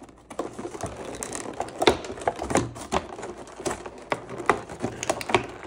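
A cardboard-and-plastic collector's box being opened and handled: irregular clicks, taps and crinkly rustling of packaging.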